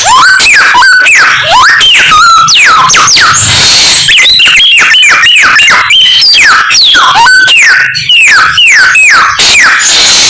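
Samyong songbird singing loudly, a rapid, unbroken stream of whistled notes that swoop up and down, with the bird mimicking the calls of other birds.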